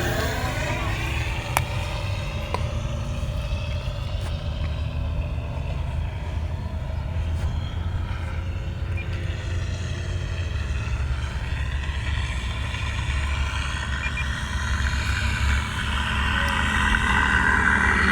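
Electric RC model P-51 Mustang flying, its onboard sound system playing a simulated piston-engine sound over the propeller's buzz. The sound sweeps in and out as the plane passes and grows louder near the end as it comes close. A low wind rumble on the microphone lies under it.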